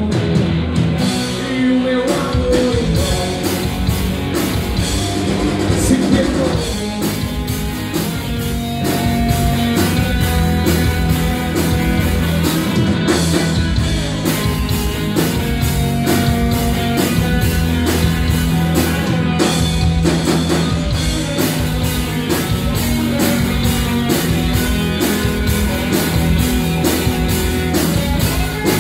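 Live rock band playing a rock ballad: electric guitars, bass and a drum kit keeping a steady beat.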